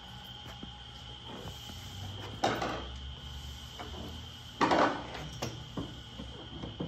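Two brief rustling, scraping handling sounds from the racing rowing shell being turned over, about two and a half and four and a half seconds in, with a few small knocks, over a steady high cricket chirr.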